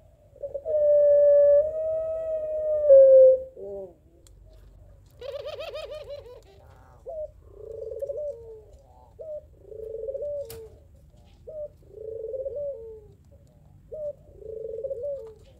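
Puter pelung doves (domestic Barbary doves) cooing. First comes one long, loud drawn-out coo that dips at its end. Then comes a short quavering call, and after it a run of quieter two-part coos about every two seconds. A single sharp click sounds about halfway through.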